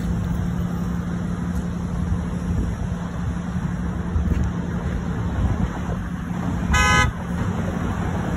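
Traffic driving through a city intersection, a steady rumble of car engines and tyres, with one short vehicle horn honk about seven seconds in.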